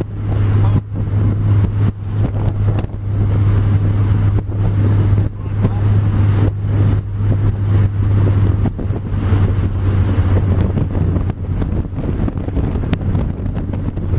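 Classic Mini race car's A-series engine running hard at steady revs, heard onboard, with a few brief dips in loudness and wind buffeting the microphone.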